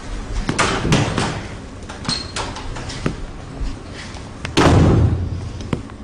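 A door shutting with a loud thud about four and a half seconds in, after a few lighter knocks and clicks.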